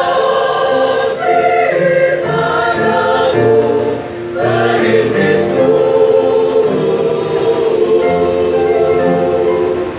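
A choir singing in parts, holding full chords that change every second or so, with a brief drop in loudness about four seconds in.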